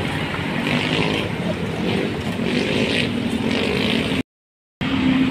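Road traffic passing close by: the engines of cars and motorcycles running in a steady wash. The sound cuts out completely for about half a second just after four seconds in.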